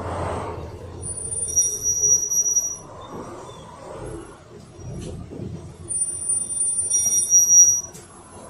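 Brakes of a Yutong ZK6890HGQ city bus squealing twice as it slows in traffic, each a high-pitched steady squeal lasting about two seconds, over the low running of the bus, heard from inside the cabin.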